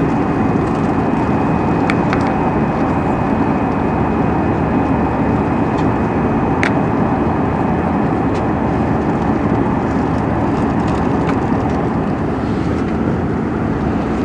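Steady drone of an airliner's engines and rushing air heard from inside the passenger cabin in flight, with a faint high whine in the first half and a few light clicks.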